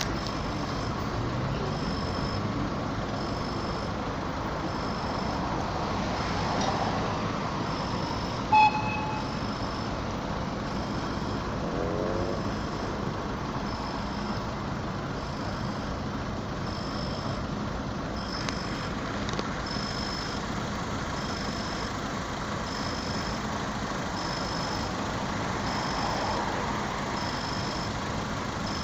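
Railroad crossing warning signal beeping a short high tone about once a second while the barriers are down, over a steady rumble. A short, loud toot comes about nine seconds in.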